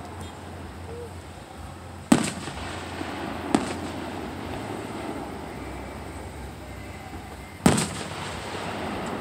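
Distant aerial firework shells bursting: a sharp boom about two seconds in, a smaller one a second and a half later, and another loud boom near the end. Under them runs a steady wash of background noise.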